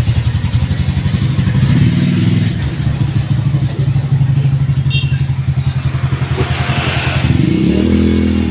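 Minerva 150 motorcycle engine idling with a quick, even pulse, the revs rising briefly about two seconds in and again near the end.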